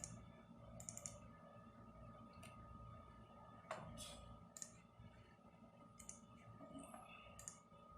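Faint, irregular clicking at a computer keyboard and mouse, about ten short clicks spread out, one a little louder about midway, over a faint steady hum.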